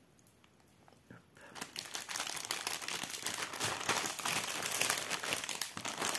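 Clear plastic packaging crinkling as skeins of cross-stitch embroidery floss are put back into it. It starts after a short hush about a second and a half in, then crackles on continuously.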